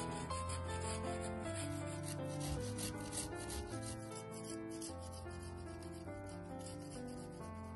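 A garlic clove being grated on a small flat stainless-steel hand grater: quick, repeated rasping strokes, strongest in the first half.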